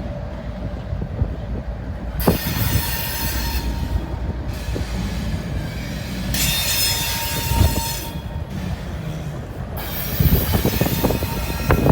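CSX intermodal freight train rolling past with a steady low rumble, its wheels squealing high-pitched in several stretches of a second or two. Knocks cluster near the end.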